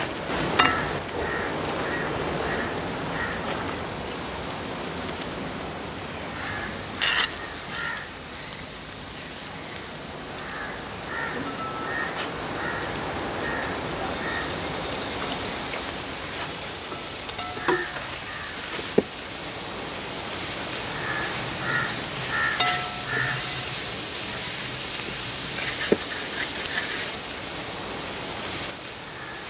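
Chopped garlic and onion sizzling in hot oil in a wide metal pan as they are stirred with a wooden spatula, with a few sharp knocks of the spatula against the pan.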